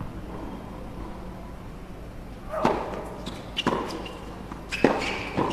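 Tennis ball struck with rackets in a doubles rally: a serve about two and a half seconds in, followed by three more sharp hits over the next three seconds.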